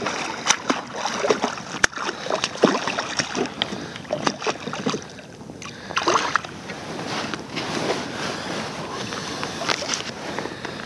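Water splashing as a large hooked ray thrashes at the surface beside a kayak, with irregular knocks and clicks.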